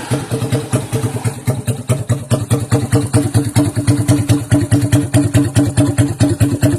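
Single-cylinder four-stroke motorcycle engine, a Honda Supra Fit bottom end with an oversize Kawasaki KZ piston, modified camshaft and PE28 carburettor, idling through a custom megaphone exhaust made of galvanised plate. It gives a steady, loud, choppy exhaust beat of about ten pops a second.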